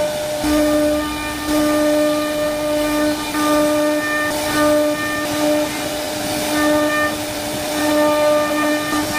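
CNC wood router spindle running at high speed and carving a relief pattern into wood, a steady high whine over the hiss of the bit cutting. The whine swells and eases every second or so as the bit moves through the cut.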